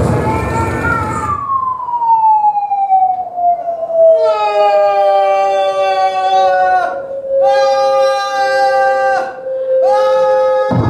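After a burst of noise in the first second or so, a pitched tone slides down slowly and then holds steady. A second, lower tone swells in and out three times beneath it, and all of it cuts off abruptly near the end.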